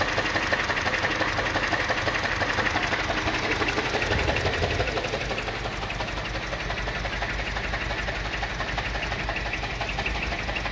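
2007 Mini One's 1.4-litre petrol four-cylinder engine idling with a steady pulsing beat, a slight shift in its low note about halfway through. It has a misfire, and the owner suspects the mixture may be running a bit rich.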